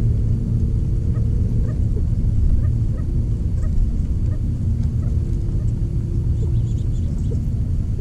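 Steady low rumble with a faint hum, and faint short bird calls through it, a few more of them in the second half.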